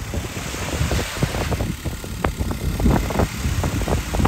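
Wind buffeting the microphone: an uneven low rumble broken by many irregular thumps, with a gusty hiss rising about a second in.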